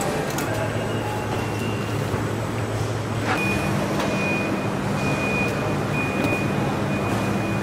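Car assembly line floor noise: a steady machinery hum and hiss with a few sharp clicks and knocks. About three seconds in, a low hum strengthens and a thin high steady tone comes in, briefly breaking off now and then.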